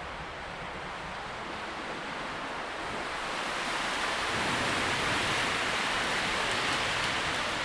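Wind rustling through tree leaves, a steady hiss that swells into a stronger gust about halfway through.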